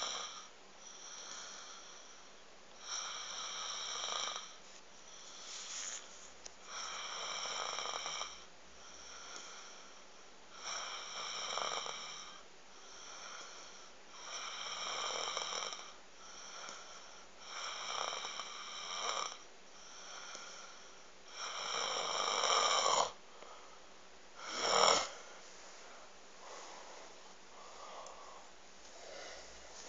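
Snoring in slow, regular breaths, one every three to four seconds, each with a high whistling wheeze.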